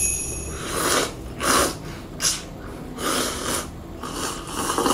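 A person slurping soba noodles, about five quick, airy slurps in a row.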